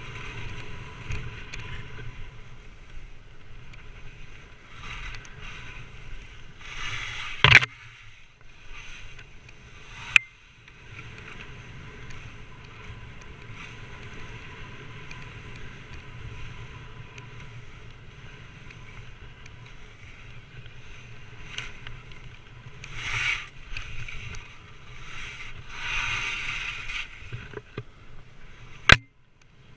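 Touring skis sliding over snow on a downhill run: a steady hiss with louder scraping surges as the skis turn, about a third of the way in and twice near the end, with wind on the microphone. Three sharp knocks stand out, one about a quarter of the way in, one shortly after, and one just before the end.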